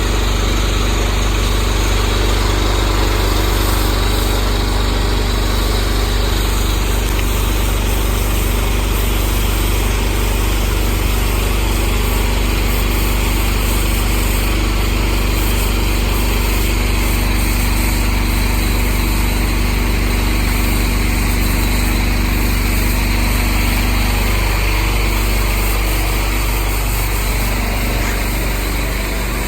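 An engine running steadily with a deep, even drone, under a constant hiss.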